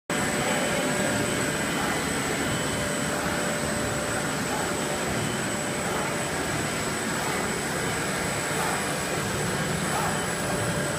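Automatic plastic-bag cutting machine running: a steady mechanical hum and hiss with a constant thin high-pitched tone.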